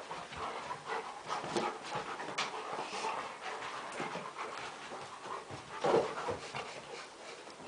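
Puppies panting hard while they play-wrestle, with irregular scuffles and short knocks, the loudest about six seconds in.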